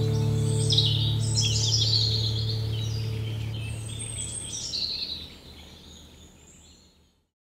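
Birdsong, many quick high chirps and sweeping calls, over the last held low notes of soft background music. The music dies away about five seconds in, and the birdsong fades out shortly after.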